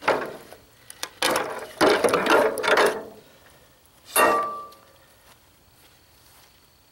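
Sheet-aluminum fuel-tank panel being pulled free of the cut-open tank, rasping and rattling against the tank's edges, then a sharp clank with a brief metallic ring about four seconds in.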